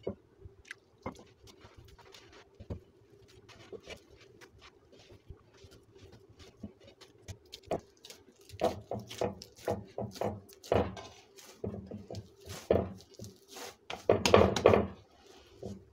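Hands kneading soft naan dough in a glazed clay bowl: irregular soft pats and slaps, sparse at first, then coming faster and louder from about halfway, loudest near the end as the dough is pressed and worked around the bowl.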